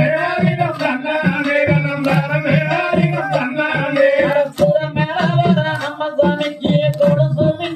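Valli kummi folk song: singing over a steady, held tone, with sharp percussion beats keeping a quick rhythm.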